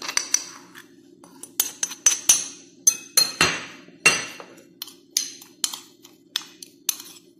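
Metal spoon clinking and scraping against a ceramic plate while stirring dry ground spices together: irregular sharp clinks, about one or two a second, some ringing briefly.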